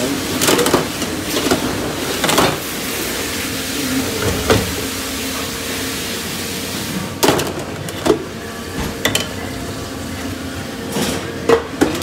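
Dishwashing in a restaurant kitchen: a steady hiss of spraying water or a running dish machine, with sharp knocks and clatter of dishes and racks. The hiss cuts off about seven seconds in, and the knocks carry on.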